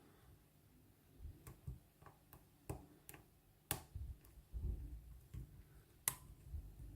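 Faint, irregular sharp clicks of a lock pick and tension wrench working the pins of a Lockwood oval pin-tumbler cylinder, with a few dull handling bumps. There are about eight clicks, the sharpest a little under four seconds in and again about six seconds in.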